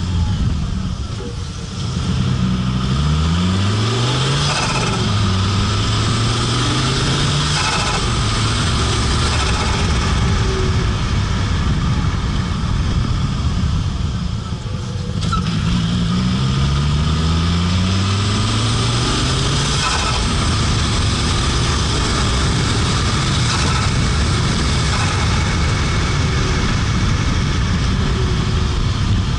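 Fiat Marea Turbo's turbocharged five-cylinder engine accelerating hard twice, its note climbing in steps as it shifts up through the gears. Each pull follows a brief dip in loudness where the throttle is lifted, once about two seconds in and again near the middle.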